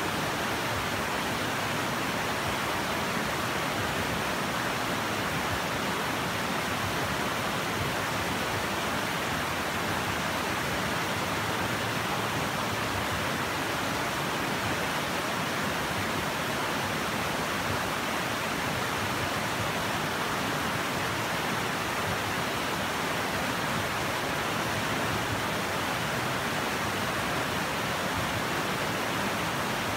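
Shallow rocky river rushing over boulders in white-water rapids, a steady, unbroken rush of water.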